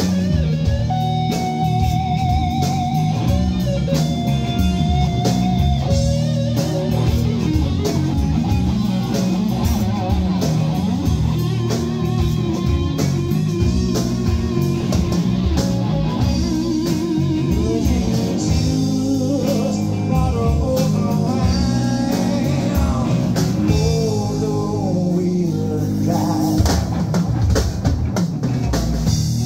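Live rock band playing an instrumental passage with a blues feel: a lead electric guitar plays sustained notes with vibrato over electric bass, a second electric guitar and drum kit.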